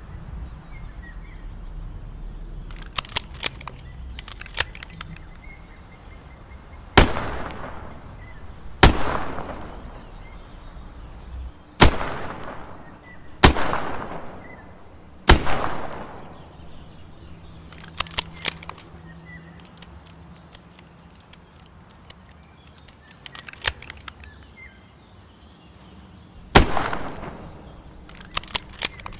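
Smith & Wesson 360J snub-nosed .38 Special revolver firing five shots about two seconds apart, then after a long gap a sixth shot, each with an echoing tail. Clusters of light metallic clicking fall between the shots.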